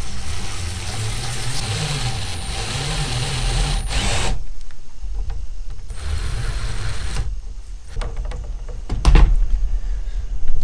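Power drill boring holes through a panel. It runs in a long burst of about four seconds, then a shorter one of about a second, its motor pitch wavering under load. A sharp knock comes near the end.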